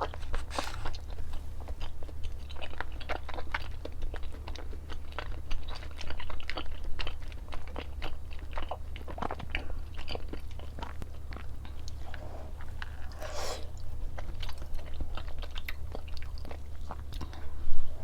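Close-miked crunchy chewing and biting: a quick, irregular run of sharp crunches over a steady low hum, with a louder crunch near the end.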